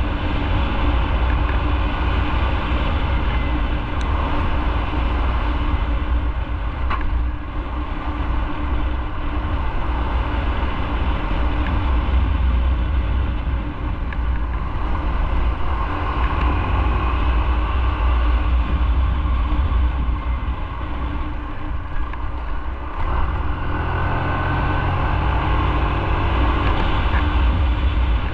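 Motorcycle engine running while under way, with a heavy low wind rumble on the microphone. The engine note changes about 23 seconds in.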